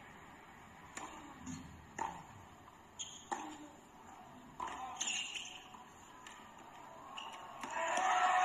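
Tennis ball bounced on a hard court about once a second before a serve, then the serve and a rally of racket strokes. Crowd applause and cheering swell near the end as the point is won.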